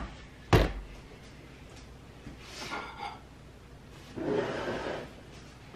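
Kitchen handling sounds: one sharp knock about half a second in, then light shuffling and a longer scuffing sound about four seconds in.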